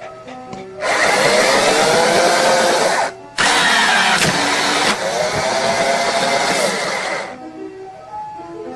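Loud whirring, motor-like noise whose pitch rises and then falls. It starts about a second in, breaks off briefly after three seconds, and stops about seven seconds in, over background music.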